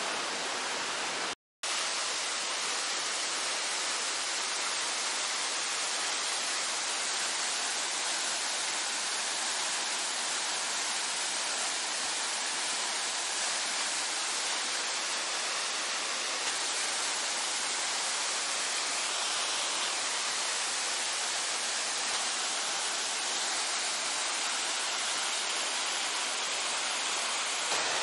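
Steady rush of water from a mountain stream and a small waterfall, cutting out briefly about a second and a half in.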